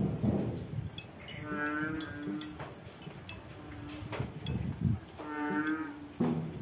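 An animal's long, even-pitched call, heard twice: about a second in and again about five seconds in, with scattered light clicks between.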